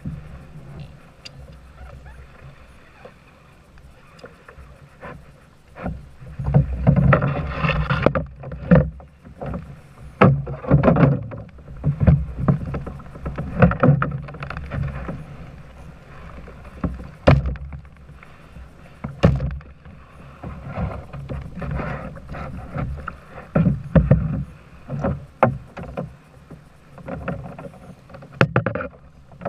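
Irregular splashing and sloshing of water, coming in uneven surges with occasional sharp knocks.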